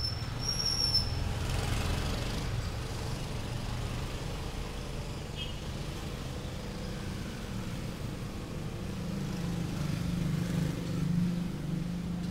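Motor vehicle traffic running steadily on a nearby street, one engine growing louder about nine seconds in as it passes. A couple of short high thin bird whistles sound right at the start.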